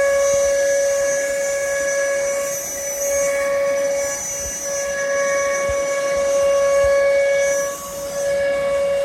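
CNC router spindle and bit cutting into a wood panel: a loud, steady high-pitched whine with a shrill whistle above it, dipping briefly about eight seconds in.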